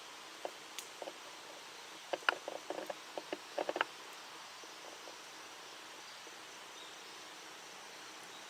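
A scattered series of light clicks and taps, bunched mostly about two to four seconds in, over a steady low hiss.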